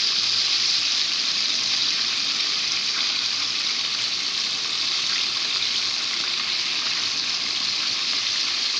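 Flour-coated chicken pieces deep-frying in oil over a medium-to-low flame in an aluminium kadai, a steady sizzle, while the pieces are turned over with metal tongs.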